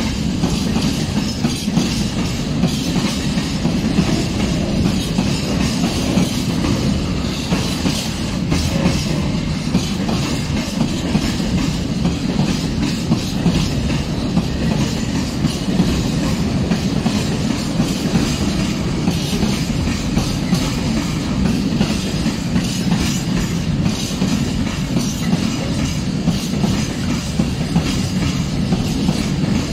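Freight train of Eanos open gondola wagons rolling past at a steady speed: a continuous rumble of steel wheels on rail, with clickety-clack as the wheels cross rail joints.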